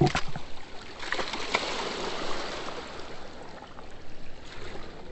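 Water splashing as a white bass is scooped up in a landing net. The splashing swells about a second in and fades over the next two seconds, with a few sharp clicks at the start.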